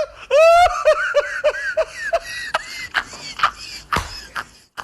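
A high-pitched laugh: a quick run of short 'ha' syllables, about five a second, falling in pitch, followed by a scatter of sharp clicks.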